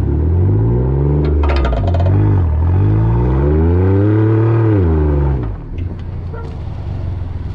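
A vehicle engine revving hard under load while pulling a truck stuck in sand on a kinetic recovery rope. It comes in two long surges, each rising then falling in pitch, with a brief clatter about a second and a half in. The revs drop off about five seconds in.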